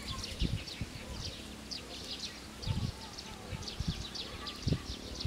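Small wildlife chirping in short, high calls, several a second at an irregular pace, with a few low thumps underneath.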